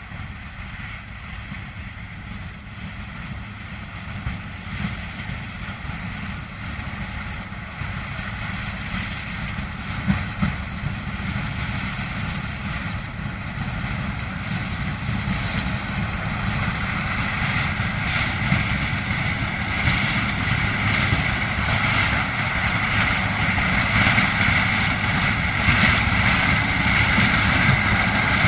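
Engine of a large piece of harvest machinery running steadily with a low rumble and a higher whine, getting louder throughout as it draws closer.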